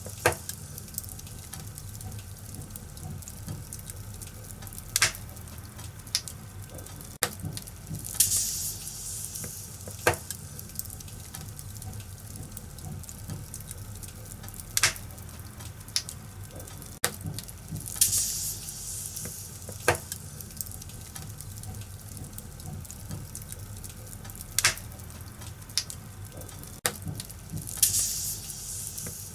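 Wood fire in a fireplace crackling steadily, with sharp pops every few seconds and short hissing surges. The pattern repeats about every ten seconds.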